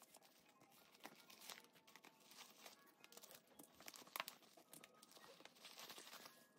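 Faint crinkling and rustling of white packing tissue paper being pulled out of a handbag and crumpled by hand, in irregular crackles, the sharpest about four seconds in.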